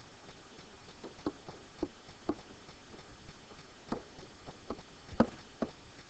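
Stylus tapping and clicking against a digital writing surface as words are handwritten, about nine light, irregular clicks, the sharpest a little past five seconds in.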